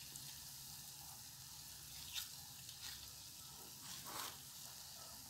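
Faint, steady sizzle of balls of batter deep-frying in hot oil in an enamel pot, with a couple of brief soft scrapes of a spoon against the metal batter bowl.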